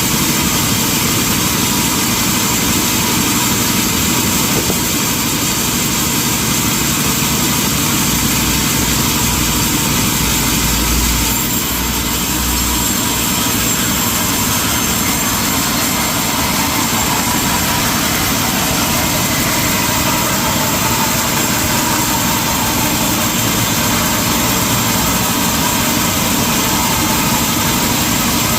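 Industrial sawmill machinery running steadily, a dense mechanical noise with a low hum joining for a few seconds about a third of the way in.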